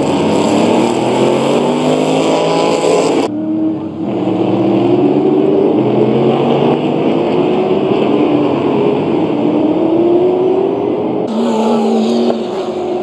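A pack of V8 racing saloons at full race pace, several engine notes overlapping, each rising through the revs and dropping at gear changes. The sound changes abruptly about three seconds in and again near the end, at edits between trackside shots.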